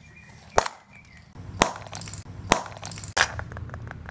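A hollow plastic surprise egg being cracked open by hand: four sharp plastic snaps and clacks, about a second apart.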